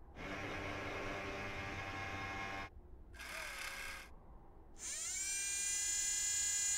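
Electric servo motors whirring, as of a robot's joints moving: three bursts. The first lasts about two and a half seconds, the second is short, and the third rises in pitch, holds steady and then cuts off suddenly. The effect voices the Curiosity rover's mast and hardware moving.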